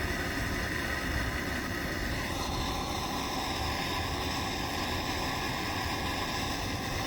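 Gas torch flame burning with a steady hiss, heating lead chips until they are molten. Its tone shifts slightly a couple of seconds in, and it cuts off suddenly at the end.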